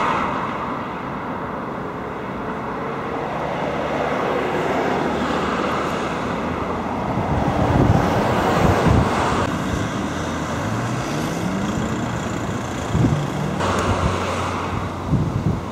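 Road traffic passing, with gusts of wind rumbling on the microphone. A vehicle engine rises in pitch as it pulls away about two-thirds of the way through.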